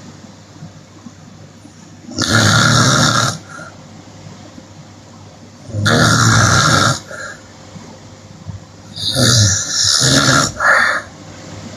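A woman snoring with her mouth open: three loud snores about three and a half seconds apart, the last one broken in two.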